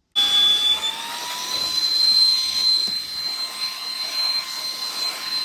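Saker 3-in-1 handheld vacuum's motor running in air blower mode with the long blowing nozzle and round brush fitted. It starts abruptly, its high whine rising over the first second as the motor spins up, then holds steady over rushing air.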